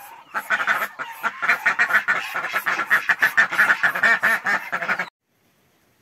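A group of ducks quacking rapidly and continuously, calls overlapping, until the sound cuts off abruptly about five seconds in.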